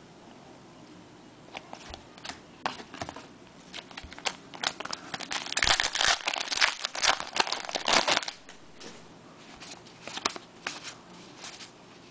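Wrapper of a trading card pack being torn open and crinkled. Scattered crackles build to a dense burst of crinkling about six to eight seconds in, then a few more crackles.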